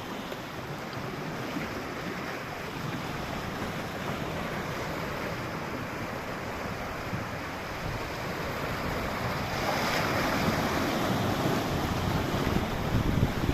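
Sea waves washing, with wind rumbling on the microphone; the wash swells louder about ten seconds in.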